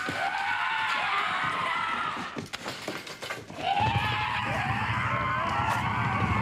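A group of men yelling and whooping over one another in war cries as they charge, with a low rumble joining in about four seconds in.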